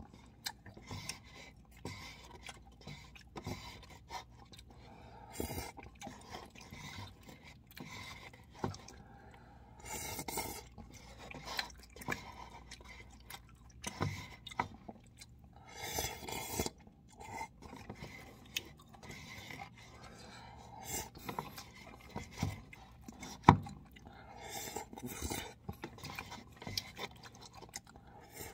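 A man eating cup ramen close to the microphone: noodles slurped in several short bursts, chewing, and chopsticks clicking and scraping against the cup. One sharp click stands out late on.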